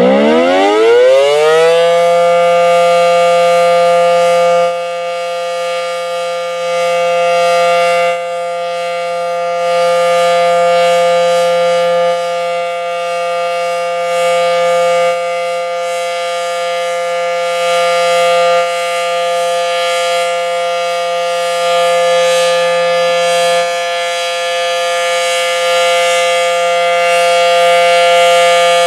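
Federal Signal SD-10 outdoor warning siren winding up, its pitch rising over the first couple of seconds, then holding a steady tone, louder and softer every few seconds: the monthly siren test.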